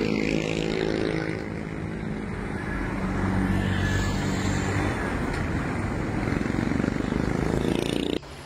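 An engine running steadily under a rushing noise, its hum fading out about halfway through; the sound cuts off abruptly near the end.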